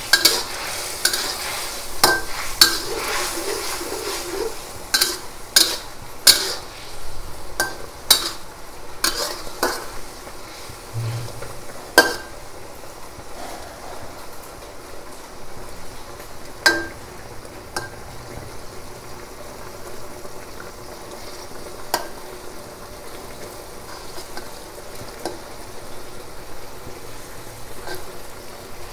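Metal spatula scraping and clinking against a steel wok as eggplant pieces are stirred in a thin tamarind sauce, over the steady sizzle of the cooking pan. The clinks come thick and fast for about the first twelve seconds, then only now and then.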